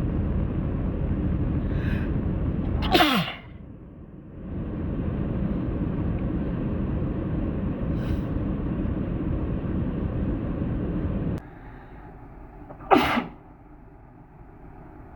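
Two loud human sneezes about ten seconds apart, each a short sharp burst whose pitch falls at the end. A steady low rumble runs under the first part and cuts off abruptly about eleven seconds in, before the second sneeze.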